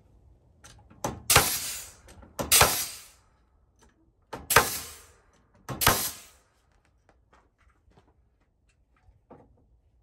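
Pneumatic nailer firing four nails into sawbuck timbers, each shot a sharp bang that trails off over about half a second, spaced one to two seconds apart.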